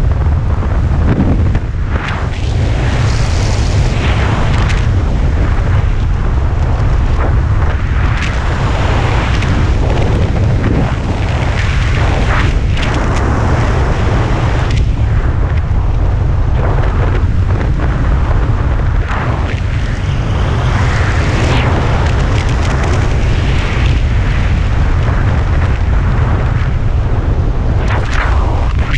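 Wind buffeting a helmet camera's microphone during parachute canopy flight: a loud, steady low rumble with irregular gusty surges.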